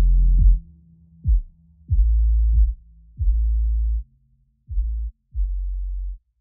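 Background electronic music with only a deep bass line: separate low held notes, each starting with a sharp click, about one every half second to a second, getting quieter in the second half.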